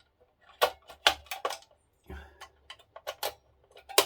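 Small kit parts clicking and tapping as they are pushed down and locked into place on an RC car chassis, about eight sharp clicks with a brief low rumble around the middle.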